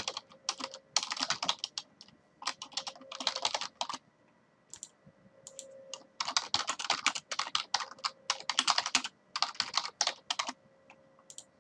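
Typing on a computer keyboard in quick bursts of keystrokes with short pauses between them, and a longer pause of about two seconds near the middle.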